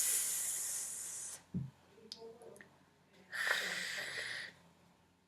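A woman's voice demonstrating voiceless fricative consonants in isolation: first a hissing "s"-like sound held for about a second and a half, then, about three seconds in, a harsher, throatier hiss lasting about a second, the Spanish "j" (velar fricative).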